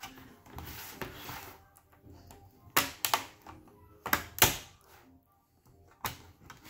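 Snap clips of a Samsung Notebook 9 Pro laptop's bottom case popping loose as the case is pried off by hand. A scraping rub about a second in, then sharp clicks: two pairs close together and one more near the end.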